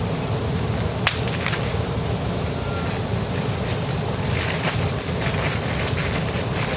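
Plastic bags crinkling and foot pedal controllers being handled while being bagged: a sharp click about a second in, then dense crinkling and rustling from about four seconds on. A steady low rumble sits underneath.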